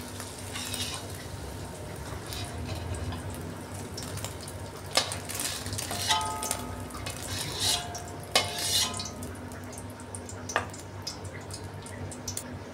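Metal spatula scraping and clinking against a thin metal wok as scrambled egg is scooped out, with a few sharp clicks. The oil left in the pan sizzles faintly underneath.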